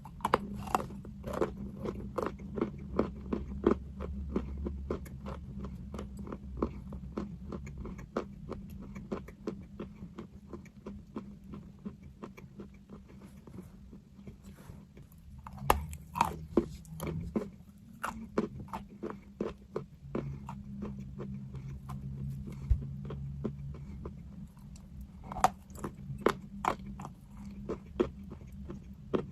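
Close-up crunching as someone bites and chews pieces of crunchy chalk. The sharp cracks come in clusters: through the first several seconds, again a little past the middle and again near the end, over a steady low hum.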